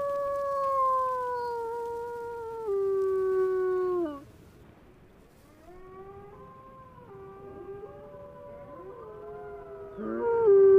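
Arctic wolf howling: a loud, long howl jumps up in pitch, then slides slowly down and breaks off about four seconds in. Fainter, wavering howls follow, with voices overlapping, and a loud howl starts again near the end. It is a hungry lone female calling for her absent mate.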